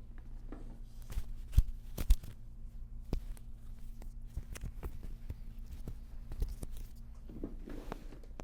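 Rustling of clothing and bodies being handled on a chiropractic treatment table, with a sharp crack about one and a half seconds in and a quick double crack half a second later.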